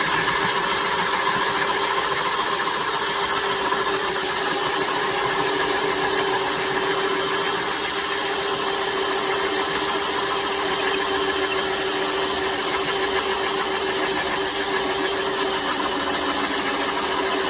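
Electric drill running at a steady, high pitch as it bores holes into timber.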